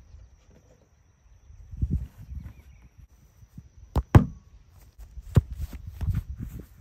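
Soccer ball kicked against a 3/4-inch plywood rebounder board: sharp thuds of foot on ball and ball on plywood, the loudest two close together about four seconds in and another about a second later as the ball comes back. Low rumbling noise between the strikes.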